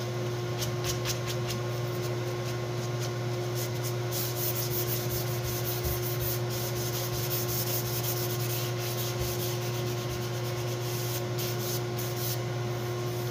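Sandpaper rubbed by hand along the edges of a wooden board, many quick, irregular back-and-forth strokes, over a steady low hum.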